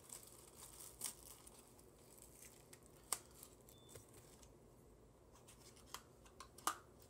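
Faint handling of small cardboard and plastic packaging as a boxed item is opened: light rustling with a few separate sharp clicks, the loudest about three seconds in and near the end.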